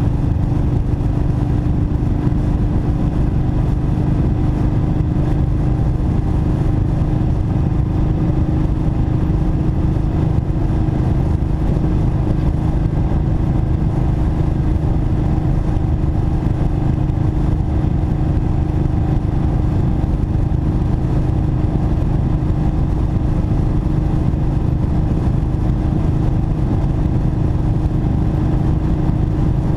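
Kawasaki Vulcan Mean Streak's 1552 cc V-twin engine running steadily at freeway cruising speed, with wind rushing over the helmet-level mount. The engine holds a constant note and a steady low rumble throughout, with no shifts or revving.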